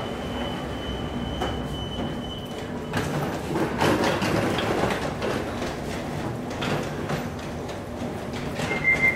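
Class 378 electric train standing at the platform with its doors open: a steady hum from its onboard equipment, and a thin high whine that stops about three seconds in. Passengers' footsteps and bags knock and rustle as people board. Near the end the door-closing warning starts, a loud repeated high beep.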